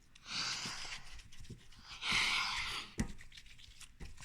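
Soft rubbing and hissing of slime being rolled between the hands, in two strokes about a second long each, with a small click about three seconds in.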